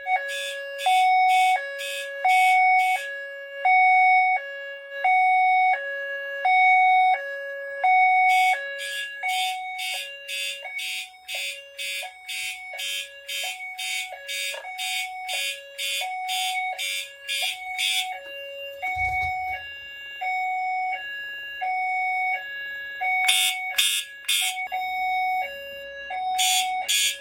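Fire alarm notification appliances, a Siemens ZH-MC-R and an FCI HE8F, sounding in alarm after a smoke detector was triggered. A steady hi-lo two-tone alternates about twice a second, while a horn pulses rapidly in a burst of about ten seconds, stops for about five, then starts again: the panel's California Code pattern.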